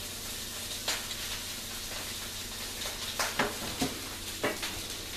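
Sheets of a paper script being handled and leafed through on a table: a few short rustles and taps, mostly between three and four and a half seconds in, over a steady hiss.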